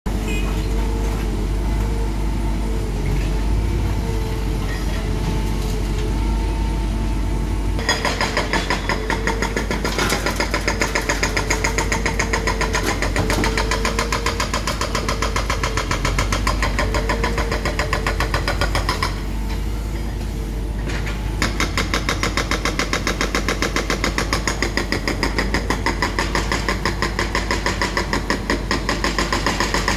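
Caterpillar M315D2 wheeled excavator's diesel engine running steadily. About eight seconds in, a rapid, even clatter joins it, breaks off for a couple of seconds a little past the middle, then starts again.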